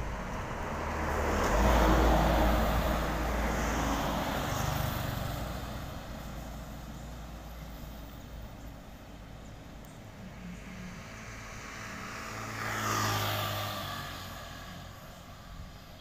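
Road traffic passing: a vehicle goes by about two seconds in with a low rumble that swells and fades, and a second vehicle passes near the end with a falling pitch.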